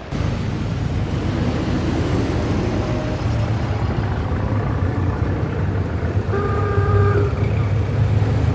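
Old-time city street traffic ambience: a steady rumble of motor cars running, with a car horn sounding once for about a second roughly two-thirds of the way through.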